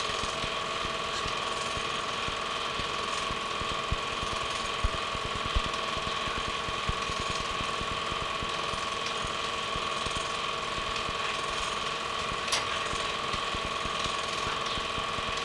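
Film projector running: a steady mechanical whirr with a fast, even clatter, and a few sharp clicks.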